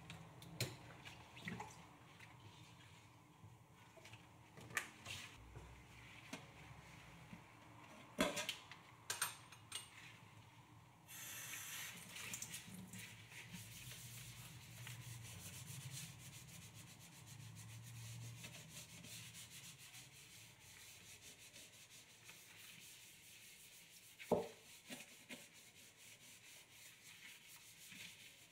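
Scrubbing a stainless steel sink with cleaner, a steady rubbing sound that starts about eleven seconds in. It follows a few sharp clicks from handling the cleaner bottle, and one more click comes about three-quarters of the way through.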